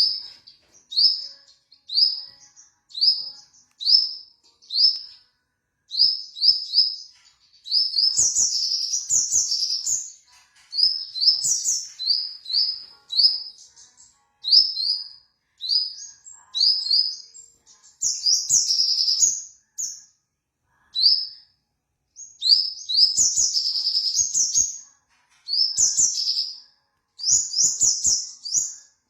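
A songbird calling: short, sharp rising notes repeated about once a second, broken up by longer rapid chattering phrases. This is a lure track played to provoke a caged sogon into singing.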